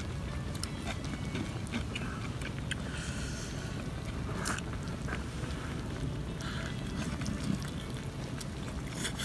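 A person eating hot-pot food: chewing with faint clicks and a few short slurping sounds, over a steady low rumble.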